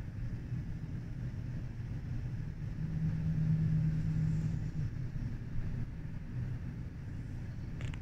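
Strong wind making a low, steady rumble, with a low hum that rises for about two seconds in the middle.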